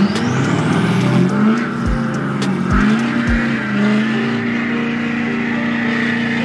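Lifted Ford Super Duty dually pickup stuck in soft sand: its engine revs up and is held at high revs while the rear tyres spin, spraying sand. A few low thumps are heard early on.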